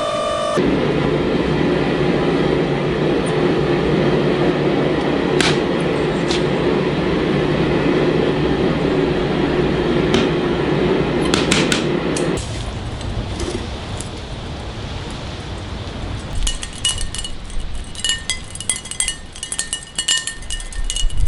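Steady shop machinery running for about twelve seconds, then stopping. In the last few seconds there is a series of metal clinks and light strikes with a short ring.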